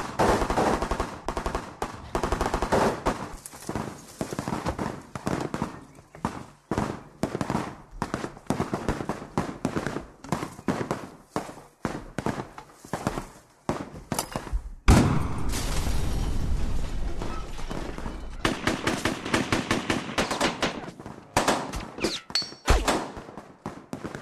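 Automatic rifle fire in rapid bursts, shots crowding one after another, with a heavy boom about fifteen seconds in followed by a low rumble.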